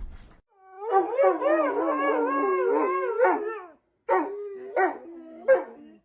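A dog howling in one long, wavering, warbling note for about three seconds, then after a short break a few shorter whining howls that fall in pitch.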